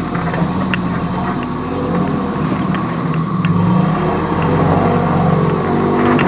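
Off-road vehicle's engine running at low speed on a rough dirt trail, its pitch rising and falling with the throttle. Occasional short knocks and rattles come through as it bounces over the ruts.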